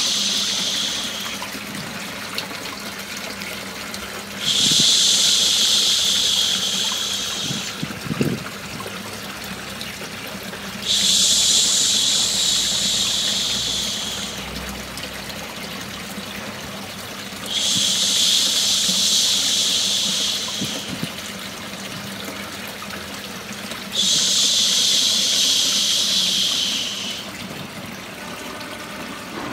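Steady running-water white noise with a baby-soothing 'shhh' shush laid over it. The shush comes about every six and a half seconds and lasts about three seconds each time: one ends about a second in, then four more follow.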